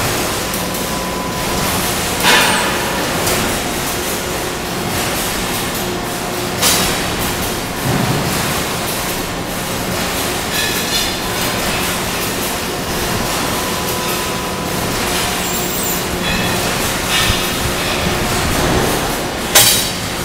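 Steady hum and running noise of factory-floor machinery, with a few sharp metallic clanks; the loudest clank comes near the end.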